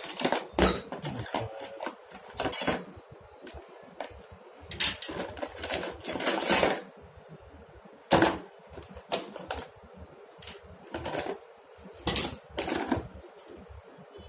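Small metal tools and refrigeration parts clinking and clattering as they are sorted out of a tool bag: irregular knocks and rattles with a few longer stretches of rummaging.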